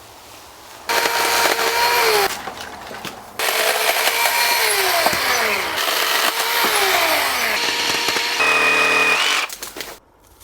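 Power saw cutting through apple-tree branches, running in two spells with its motor pitch repeatedly sagging as the blade bites into the wood. Near the end it runs freely at a steady higher pitch, then stops suddenly.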